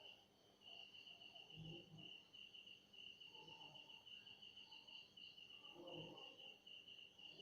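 Faint cricket chirping, a fast, steady pulsing trill, with two soft knocks from handling.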